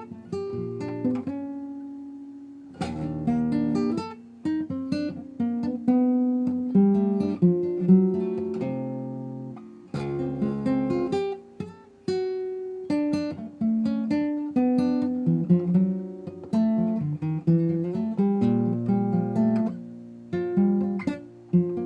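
Acoustic guitar music: a steady run of plucked notes and chords, each note fading after it is struck.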